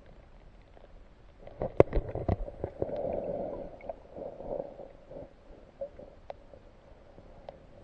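Water gurgling and sloshing close by, with a cluster of sharp knocks about two seconds in.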